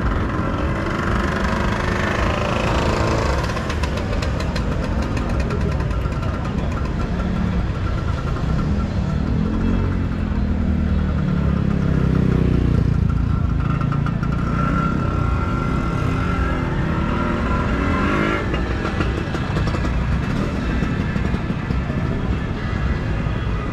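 Motor scooter engines passing one after another, the pitch rising and falling as each goes by.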